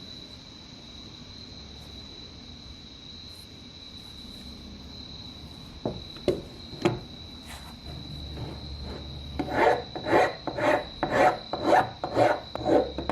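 Hand abrasive work on the revolver's metal: a few single scrapes, then even back-and-forth rasping strokes about twice a second from about two-thirds of the way in.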